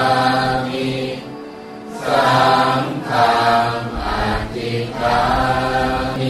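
Chanted vocal music: a choir-like chant in phrases about a second long, separated by short pauses, over a held low drone.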